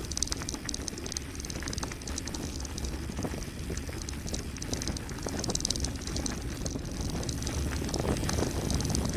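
Mountain bike running fast downhill on a gravel road: steady rolling rumble, a fast high rattle, and frequent small knocks from the rough surface.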